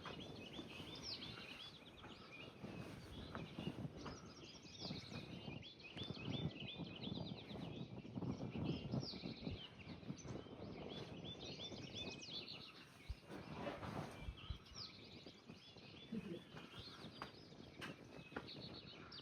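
Songbirds chirping and singing in short repeated phrases, over a low, uneven rumble of wind on the microphone.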